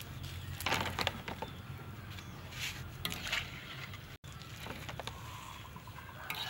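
Boiled chicken feet tipped into a plastic basket: a few short rustling, clattering bursts over a steady low hum.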